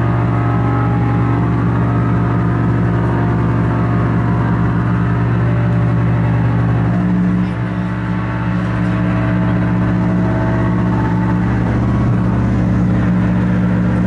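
Harsh noise music played live on tabletop electronics: a loud, dense wall of distorted noise over a steady low drone, thinning briefly about halfway through.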